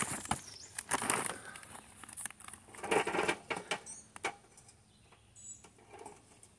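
Instant-light charcoal briquettes poured from a paper bag into a small portable kettle grill: the bag rustles and the briquettes clatter and knock against each other and the metal bowl, thinning to a few scattered clicks as they are piled by hand.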